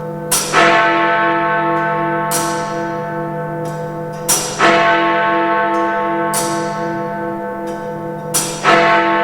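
Big Ben's great bell striking heavily three times, about four seconds apart, its deep ringing tone hanging on between strokes. Lighter strikes fall midway between the heavy ones.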